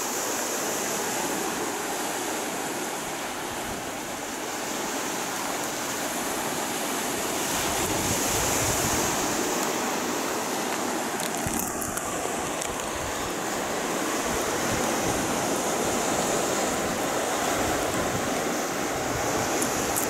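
Sea surf washing steadily over the rocks and concrete wave-breaker blocks at the foot of a seawall, a continuous rushing with some wind on the microphone.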